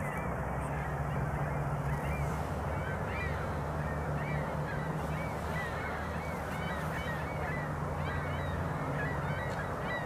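A flock of geese honking, many short calls one after another, over a steady low hum.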